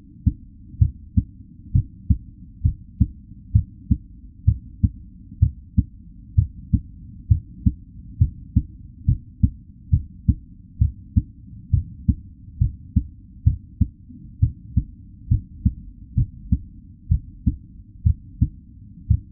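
Real human heartbeat at a normal resting rate: a steady lub-dub of two soft low thumps per beat, about one beat a second, heard muffled as through a stethoscope or body contact.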